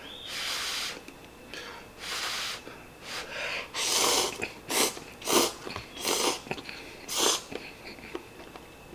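A man slurping instant cup noodles: a string of airy slurps, about eight, the longest about four seconds in.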